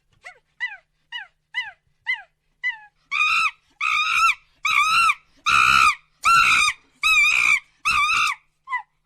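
Monkey calls: a run of short falling chirps, then from about three seconds in a series of about seven louder, longer calls in quick succession, ending with a few short chirps.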